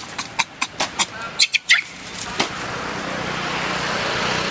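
A quick run of short, sharp animal calls, several a second, with a couple of higher rising squeals about a second and a half in; after about two and a half seconds the calls stop and a steady rushing noise builds and holds.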